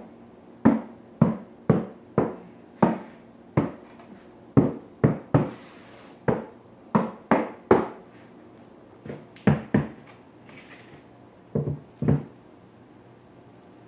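A mallet knocking on rigid-core luxury vinyl planks to seat their click-lock joints. There are about eighteen sharp knocks in irregular runs of two to four, with short pauses, and the last few come near the end.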